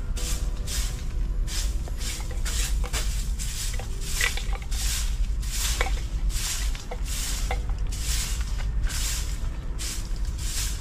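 Straw broom sweeping dry dirt ground in quick, even swishing strokes, about two a second, over a steady low rumble.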